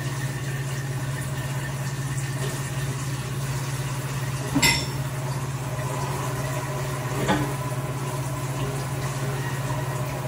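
Two sharp clinks of kitchenware, about four and a half seconds in and again a little after seven seconds, over a steady low hum.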